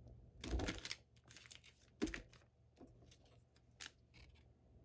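A trading card being handled and slid into a soft plastic sleeve: a few faint rustles and light clicks, the loudest about half a second and two seconds in.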